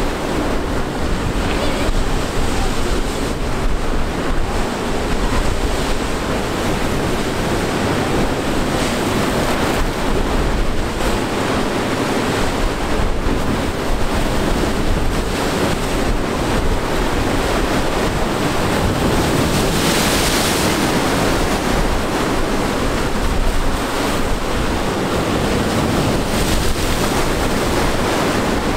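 Rough surf: waves breaking and washing against the rock jetty, with strong wind buffeting the microphone. A louder splash of spray comes about twenty seconds in.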